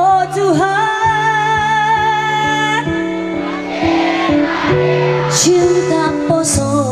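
A woman singing live with a band: she holds one long, slightly wavering note for about three seconds, then the band plays on under a short sung phrase about five seconds in. A keyboard is among the band's instruments.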